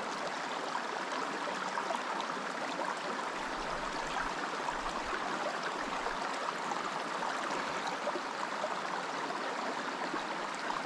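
Creek water flowing steadily, an even rushing hiss.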